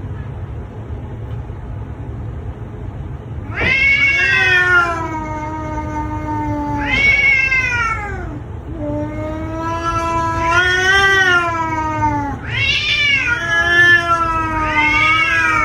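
Cat yowling in long, drawn-out meows: three or four calls of a few seconds each, starting a few seconds in, their pitch sliding up and down. A steady low hum runs underneath.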